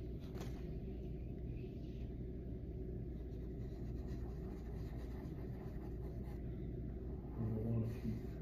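A pastel stick rubbing and scratching across paper as it lays down colour, over a steady low room hum. There is a brief low rumble near the end.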